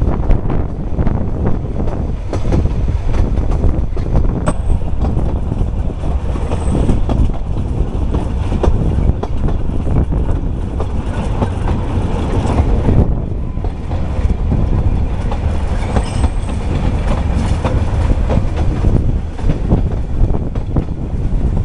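Narrow-gauge passenger carriage of the Talyllyn Railway running along the line: a steady, loud rumble with wheels clicking over the rail joints, and a few brief faint high squeaks.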